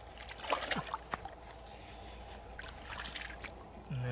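Water sloshing and splashing as bare feet wade and hands grab at fish in a shallow muddy puddle. Near the end a cow moos once, steady in pitch, the loudest sound.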